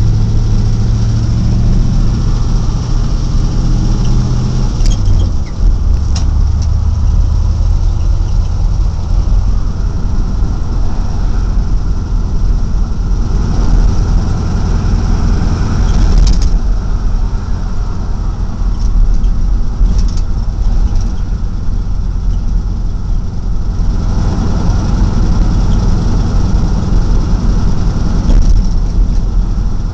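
Truck engine running while driving, heard from inside the cab with road and tyre noise; the engine note drops about five seconds in as the driver shifts gear. A few sharp knocks come through, the loudest around the gear change.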